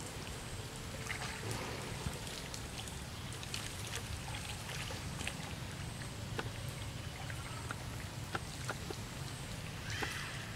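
Pond water splashing and lapping as macaques swim through it, with many small splashes and drips over a steady low hum.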